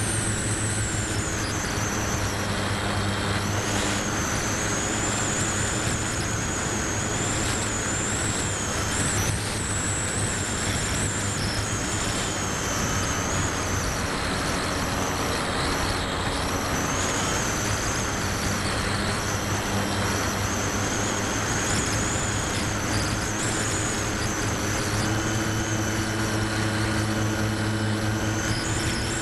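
Electric motor and propeller of an RC model plane in flight, heard from a camera mounted on the plane. It runs as a steady drone with a high whine that wavers up and down in pitch, over the rush of wind.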